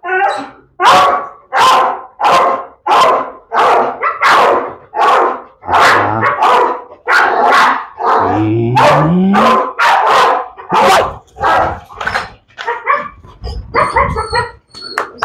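Pit bull barking over and over, about one and a half barks a second, with a long rising call about halfway through; the barks grow shorter and weaker near the end.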